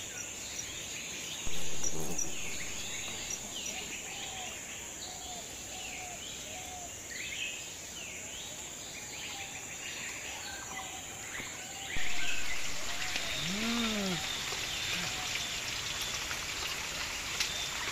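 Forest ambience of many small birds chirping and calling over a steady high insect drone. About twelve seconds in it switches to a denser steady patter of rain, with one low call that rises and falls a couple of seconds later.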